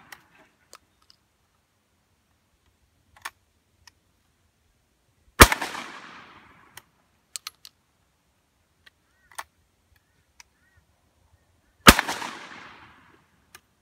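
Two shots from a CBC Model 151 single-shot 12-gauge shotgun firing 1 oz slugs, about five seconds in and again near the end, each followed by about a second of echo. Between them come small metallic clicks as the break action is opened to eject the empty shell and closed on a fresh one.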